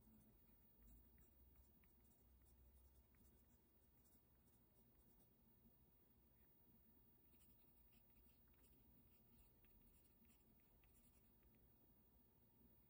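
Faint scratching of a pen writing on paper laid on a glass tabletop, in short irregular strokes that come thicker in the second half.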